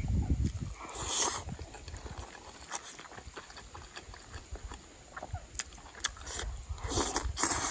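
Close-up eating sounds: chewing a mouthful of rice and stir-fried eggplant, with a metal spoon scraping and clinking against the bowl in a few short clicks. Louder scrapes come about a second in and near the end.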